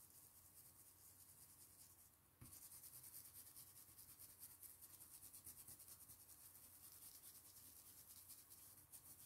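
Stiff stencil brush scrubbing paint through a plastic stencil onto fabric in rapid, faint scratchy strokes, growing louder about two and a half seconds in as the brush starts working the stencil.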